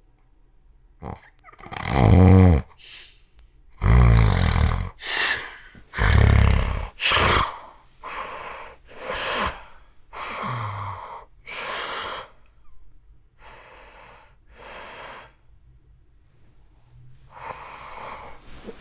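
A man snoring in his sleep: about a dozen loud, irregular snores and snorts with a low rattling buzz, loudest in the first few seconds and softer after about twelve seconds. The sleeper puts his extreme snoring down to sleep apnea.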